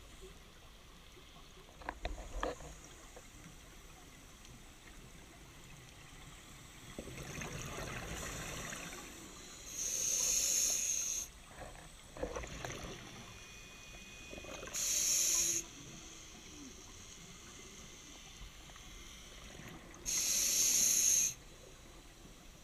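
Scuba diver breathing through a regulator underwater: three hissing inhalations about five seconds apart, with rushing exhaled bubbles between them and a few faint knocks.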